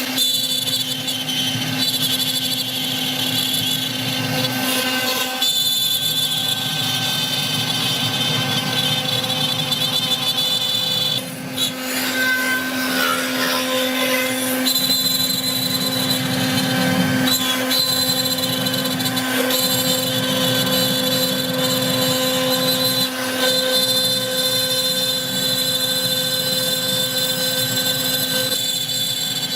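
CNC wood router running, a steady low hum with high whines over it, dipping briefly about eleven seconds in.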